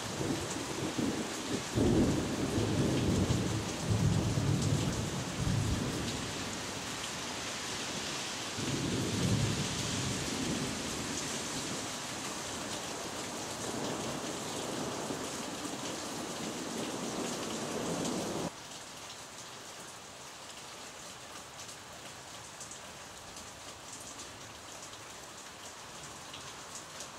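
Thunder rumbling over a steady hiss of rain. The loudest, deepest rumble rolls for several seconds about two seconds in, with further rumbles later. About two-thirds of the way through, the sound drops abruptly to a quieter, even rain hiss.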